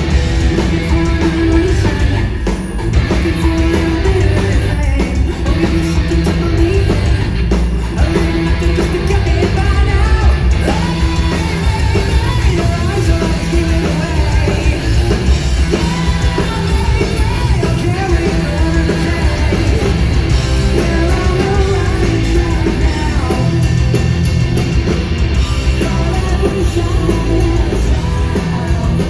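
Live rock band playing loud: a male lead vocal sung over electric guitar, bass guitar and drums, heard from the audience.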